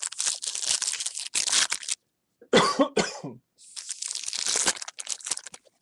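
Foil trading-card pack wrapper being torn open and crinkled by hand, in two stretches of crackling, with a short cough about two and a half seconds in.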